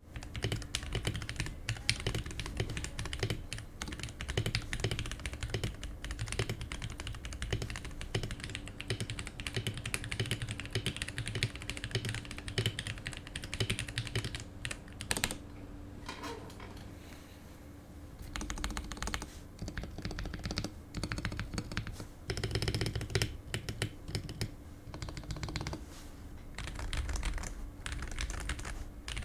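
Continuous fast typing on a Pulsar PCMK TKL mechanical keyboard with Pulsar PBT double-shot keycaps: a dense run of key clacks that thins out briefly about halfway through, then picks up again. It is picked up partly by a HyperX Quadcast desk microphone and partly by the camera's microphone.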